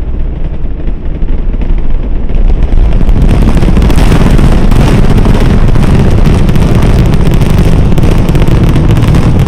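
Launch roar of NASA's Space Launch System rocket, its two solid rocket boosters and four RS-25 engines at full thrust: a deep rumble that swells about two to three seconds in into a very loud, crackling roar.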